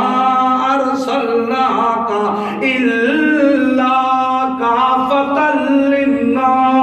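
A man's voice chanting a Quranic verse in drawn-out melodic recitation, unaccompanied, holding long notes that step up and down in pitch.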